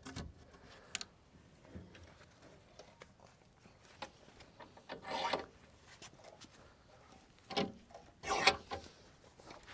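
A 2x4 being worked in the jaws of a steel hitch vise: scattered knocks and clicks of wood against metal, with a couple of short scraping rubs about five seconds in and near the end.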